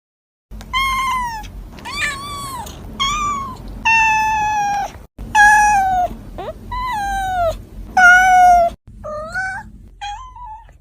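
Domestic cat meowing over and over: about eight drawn-out meows in a row, each one bending up and then down in pitch. The last two are fainter, and there are abrupt cuts between some of the calls.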